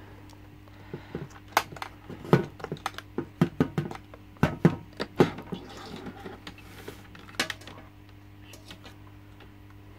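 Sharp clicks and knocks of a SunSun HW-504B canister filter being opened: its latch clips are unsnapped and the plastic lid with the UV-sterilizer tube is lifted off the canister, in an irregular run of several clicks.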